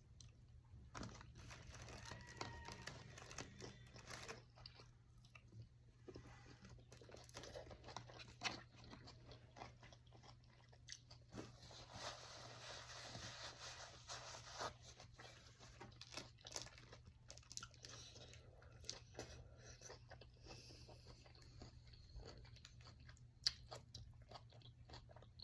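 Faint close-up eating sounds: food being chewed and crunched, with many small scattered clicks and crackles. A steady low hum sits underneath.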